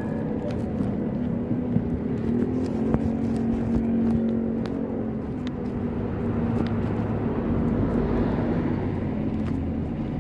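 Motorcycle engine running under way, its pitch rising a little about two seconds in and then holding steady, over road and wind rumble.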